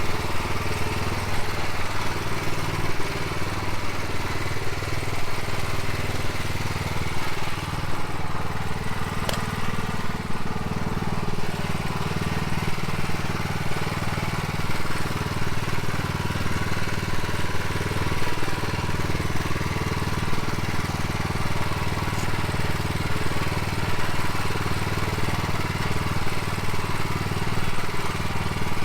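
Honda engine of a self-propelled branch chipper running steadily, with a single sharp click about nine seconds in.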